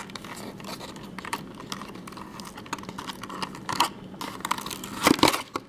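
A small cardboard toy box being opened by hand and its clear plastic packaging slid out: a run of small clicks and crinkles, with a louder cluster of rustling about five seconds in.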